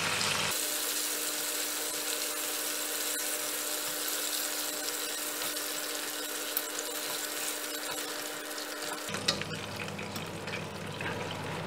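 Chicken pieces deep-frying in hot oil in a wire fryer basket, a steady sizzle. A few light clicks near the end as wooden chopsticks move the pieces against the wire basket.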